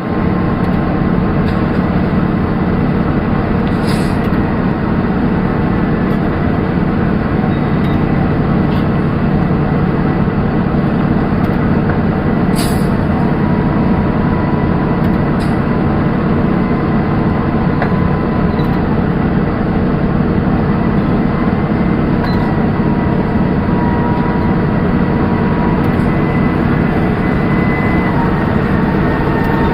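Komatsu excavator's diesel engine running steadily under a constant load, with a faint high whine and a few brief ticks.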